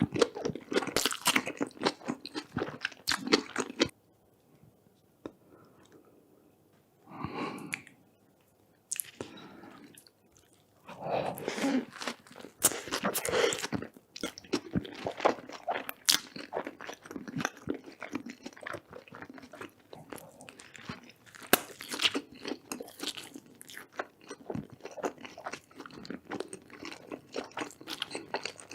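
A person chewing and crunching food close to the microphone, mukbang-style, with wet crackly bites throughout. There is a pause of a few seconds about four seconds in.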